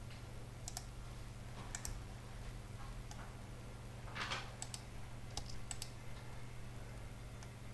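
Scattered sharp computer mouse clicks, some in quick pairs, over a steady low electrical hum, with a short rustle about four seconds in.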